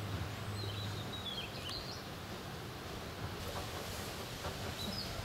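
Outdoor background noise with a bird chirping in short gliding calls, twice, and a steady low hum that stops about a second in.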